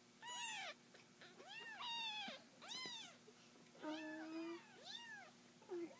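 Three-week-old kittens mewing: about six short, high-pitched cries, each rising and then falling in pitch.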